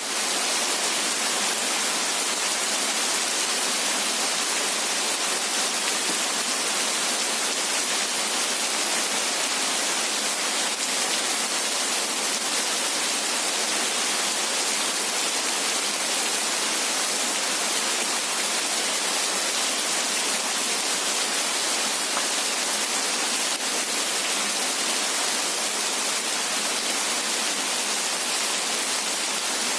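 Steady heavy rain, an even hiss with most of its weight in the high end and no thunder.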